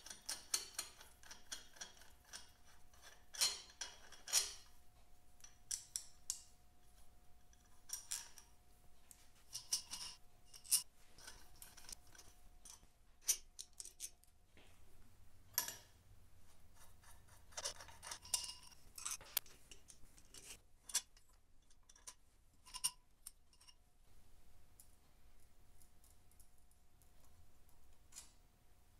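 Light metallic clicks and taps of small steel parts: cylinder head nuts and washers on a 1951 Vincent Rapide V-twin engine being unscrewed by hand and lifted off. The taps come thick in the first twenty seconds and thin out after about twenty-four seconds.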